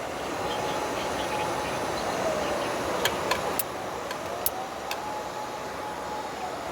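A steady rushing background, like traffic on a nearby road, with a faint tone that slowly rises, holds and falls twice. A few sharp clicks come between about three and five seconds in.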